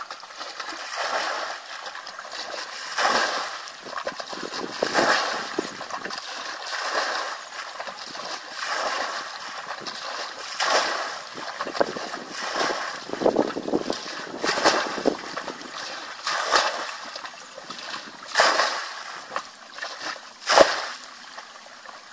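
Muddy water being bailed out of a shallow ditch with a plastic bucket: a scoop and splash about every two seconds as each bucketful is thrown out.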